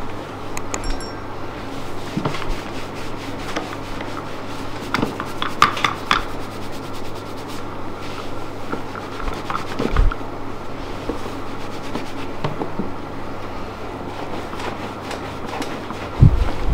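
Massage sounds: hands rubbing and pressing over skin and clothing, a soft scratchy friction with scattered small clicks and a couple of dull thumps, about ten seconds in and near the end, over a steady low hum.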